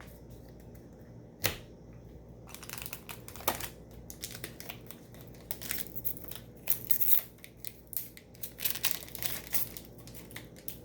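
Trading-card booster pack wrapper being torn open and crinkled by hand. A sharp click comes about a second and a half in, then dense irregular crackling from a few seconds in until near the end.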